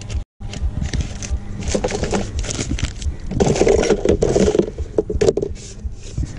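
Hands rummaging through a zippered fabric bag: cloth rustling and items scraping and shifting, in a dense run of small irregular knocks. The sound drops out briefly just after the start and is louder and more muffled from about three to five seconds in.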